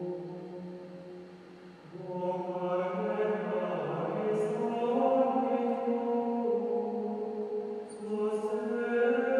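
Male choir of Benedictine monks singing chant with long, slowly moving held notes; one phrase dies away and a new one begins about two seconds in.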